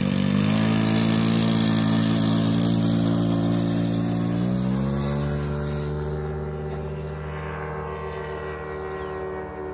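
Radio-controlled model warbird's engine opening up for takeoff. The pitch steps up shortly after the start and again about halfway through, then holds a steady high note that fades as the plane climbs away.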